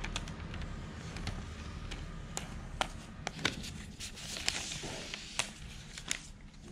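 Protective paper wrap rustling as it is peeled off a new tablet, with scattered sharp clicks and taps of handling and a louder rustle about four and a half seconds in, over a steady low hum.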